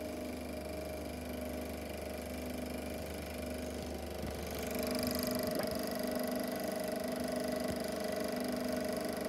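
Super 8 sound film projector running as the end-of-reel leader runs through: a steady mechanical hum with held whirring tones. About halfway through the low hum drops away and the running gets a little louder, with a stronger higher tone.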